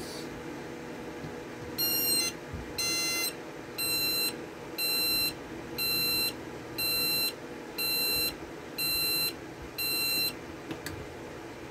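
KMC digital alarm clock's alarm sounding: nine evenly spaced, high-pitched electronic beeps, about one a second, each about half a second long. The beeping stops near the end when the snooze button is pressed.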